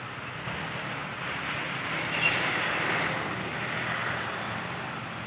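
A road vehicle passing by, its noise building to a peak about two seconds in and then fading away.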